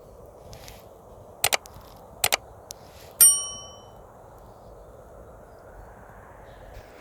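A metal object struck once, ringing with a clear bell-like tone that fades in under a second, after two quick pairs of sharp knocks.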